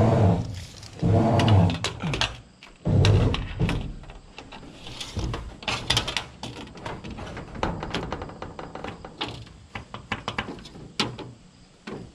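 Knocks and clicks of handling on a corrugated steel roof panel while a tape measure is held against it and marked: a few heavy thumps in the first few seconds, then a run of short sharp taps and clicks.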